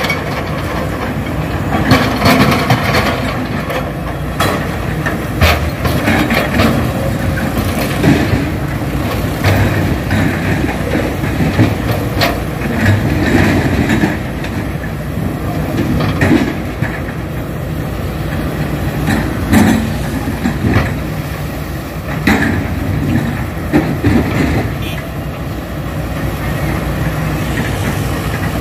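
Hydraulic excavator's diesel engine running steadily under load, with heavy clanks and knocks every few seconds as its steel bucket handles and drops boulders into the river.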